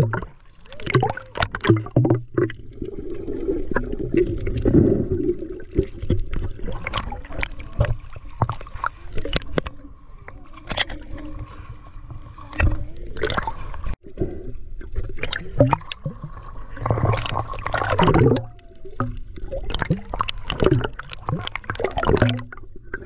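Water sloshing and gurgling, with frequent irregular splashes and knocks.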